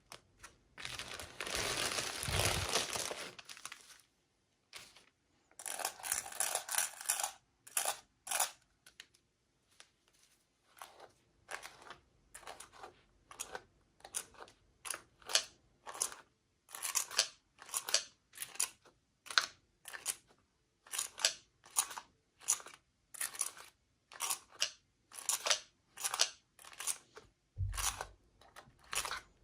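Toy packaging being torn open and handled: a long tearing, rustling stretch near the start, then a steady run of short rustling strokes, about two a second.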